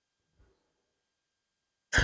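Near silence during a pause in a man's talk, then his speech starts again at the very end.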